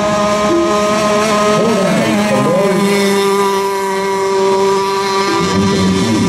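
Engines of several radio-controlled racing boats running at high, steady revs together. Their pitches bend about two seconds in and near the end as boats pass by.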